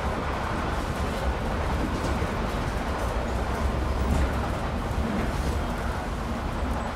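Steady low rumble and rushing noise inside a Tri-Rail commuter train car as the train runs.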